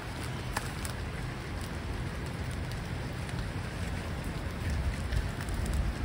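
Steady rain falling on water and leaves: an even hiss with scattered sharp drop ticks over a low rumble that grows a little near the end.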